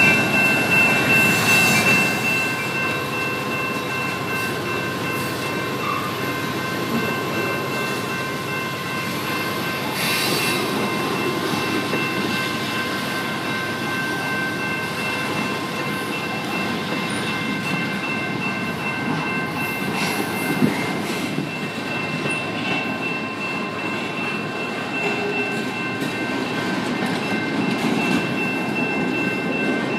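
Freight train cars rolling past close by: a steady rumble of wheels on rail with a high-pitched whine held over it. It is a little louder for the first couple of seconds, as the Canadian Pacific locomotive moves off.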